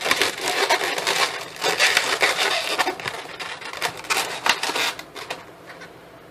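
Latex modelling balloons squeaking and rubbing against each other and the hands as they are twisted and wrapped together: a dense run of creaks, scrapes and crackles that thins out about five seconds in.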